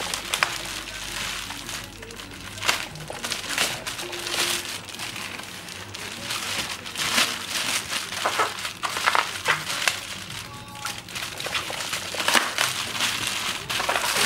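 Plastic packing wrap crinkling and rustling in irregular bursts as it is cut open and pulled off a packed item.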